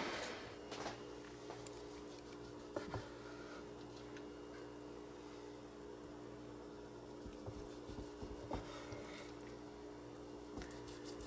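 Low steady hum of a quiet kitchen, with a few faint scattered taps and clicks from a knife slicing seared venison backstrap on a wooden cutting board. The pan sauce's simmering noise dies away at the very start.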